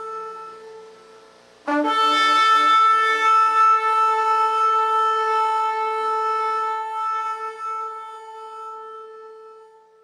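A long, steady trumpet-like horn blast on one held note. A fading note gives way to a loud new blast starting abruptly a couple of seconds in, which then slowly dies away.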